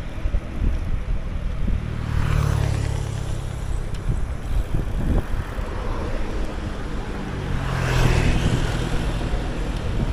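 Wind rumbling on an action camera's microphone while riding a road bike, with road and traffic noise behind it; the noise swells twice, about two seconds in and again near eight seconds.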